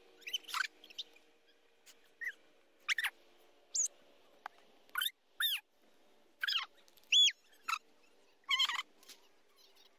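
A string of short, high-pitched squeaky chirps, about a dozen in ten seconds, many rising then falling in pitch, the loudest about seven seconds in.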